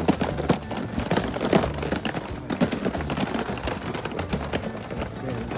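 Footsteps on a stone-paved path: a dense, irregular run of clicks and scuffs.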